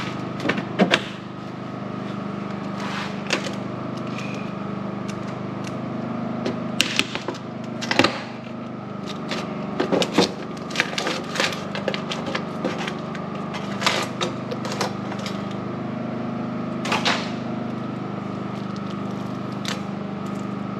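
Scattered clicks, knocks and clinks of metal parts being handled: a chop saw's blade flanges and blade being taken off and set out for fitting. Under them runs a steady mechanical hum.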